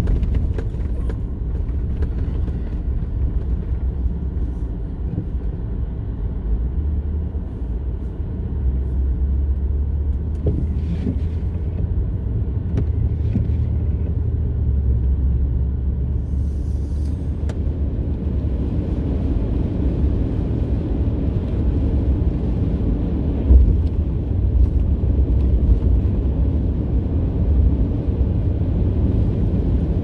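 Steady low rumble of a car driving on a snow-covered road, heard inside the cabin: engine and tyre noise. It grows a little louder after the middle, and a single brief thump comes about three-quarters of the way through.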